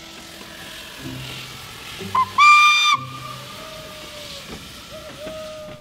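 Steam locomotive hissing steam, with a short pip and then a loud whistle blast of about half a second, about two seconds in.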